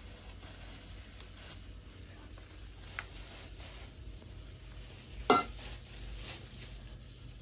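Metal fork spreading cottage cheese over a stack of pancakes, soft scraping, with a light tap about three seconds in and one sharp clink of cutlery against a dish a little after five seconds.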